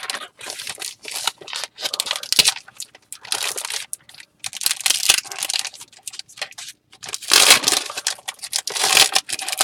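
Foil trading-card pack wrapper being torn open and crinkled by hand, in irregular bursts of rustling with short pauses, loudest near the end.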